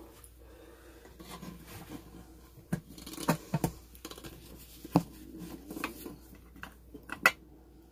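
Stainless-steel nesting pots being handled while a black elastic strap is pulled around the stack: rubbing and scraping with several sharp clicks and knocks, the loudest near the end.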